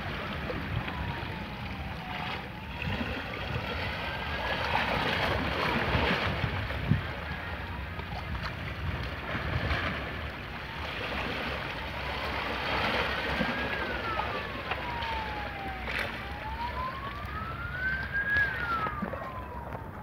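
Sea water washing against shoreline rocks with wind rumbling on the microphone, while a wailing siren slides slowly up and down in pitch, each rise and fall taking several seconds.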